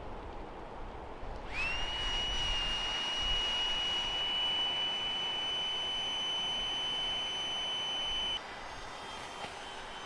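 Small battery-powered sleeping-pad pump inflating an air sleeping pad: it spins up to a steady high whine about a second and a half in. About eight seconds in the whine turns quieter and slightly higher.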